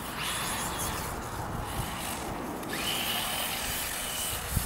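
Turnigy XK4074-2000KV brushless motor of a 1/8-scale XTM Rail RC buggy driving on sand, rising into a steady high whine for about a second and a half past the middle. Wind buffets the microphone throughout, with a brief thump near the end.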